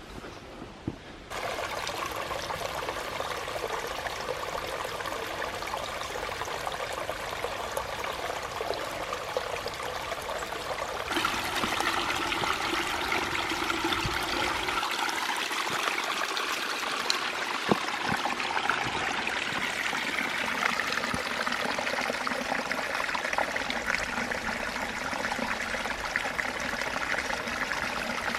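Running water of a small mountain stream, a steady rush that starts abruptly about a second in and turns louder and brighter at around eleven seconds.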